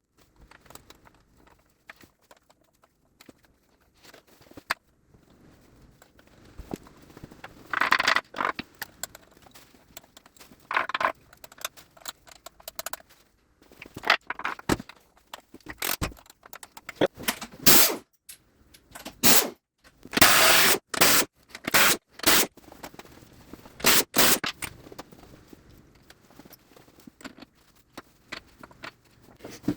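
Hand tools working on the main bearing cap bolts of a Gardner 2LW diesel crankcase, with metal-on-metal clinks, scrapes and clatter as the caps come off. The noises come in irregular bursts, most of them in the middle of the stretch.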